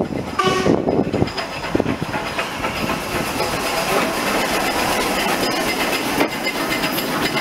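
LMS Stanier 8F 2-8-0 steam locomotive No. 48624 running into a station at the head of its train, wheels clicking over the rail joints, getting louder as it draws near.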